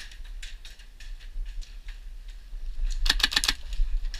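Airsoft fire: a rapid burst of about seven sharp clicks a little after three seconds in, with scattered single ticks before it.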